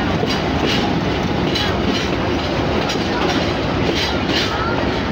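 Train in motion heard from the first car behind a GE 80-ton center-cab diesel switcher: a steady rumble with the clickety-clack of wheels over the rails. The locomotive is working on only one of its two Cummins diesel engines, the other having failed.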